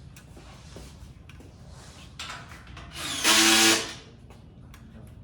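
A small motor whirs briefly, for under a second, about three seconds in, over faint handling noise.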